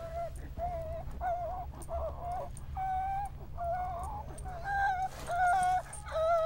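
Mourners wailing: a run of high, wavering sobbing cries, each about half a second long, over a low steady hum.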